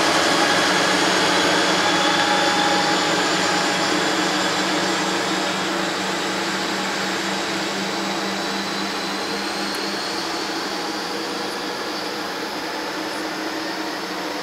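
Siemens SC44 Charger diesel locomotive pushing a bilevel commuter train away: a steady engine and cooling-fan drone with a few held tones, slowly fading as the train recedes.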